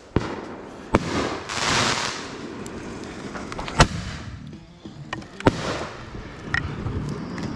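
Fireworks going off: several sharp bangs a second or two apart, with a spell of hissing crackle about two seconds in.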